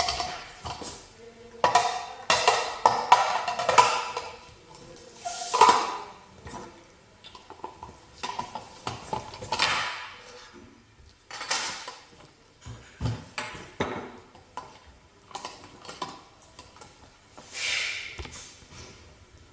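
Parts of a manual meat grinder being handled and fitted together: irregular clicks, knocks and clattering of metal and plastic pieces.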